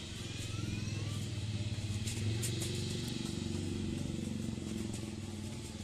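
Jet engines of a Batik Air Airbus A320 rumbling as the airliner rolls along the runway, swelling in the middle and easing off toward the end.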